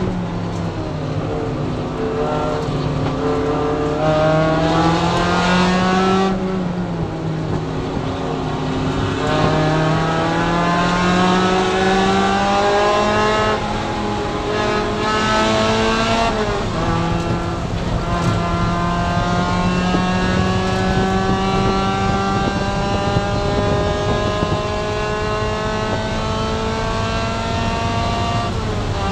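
Race car engine heard from inside the stripped, caged cabin, running hard under racing load. The engine note falls sharply about six seconds in, climbs again, dips once more about halfway, then rises steadily through the last dozen seconds as the car accelerates down a straight.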